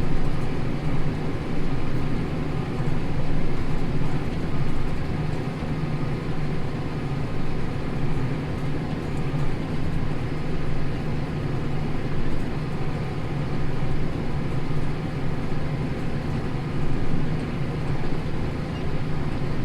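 Tractor engine running steadily under load, pulling a plough through stubble: an even drone with no change in pitch.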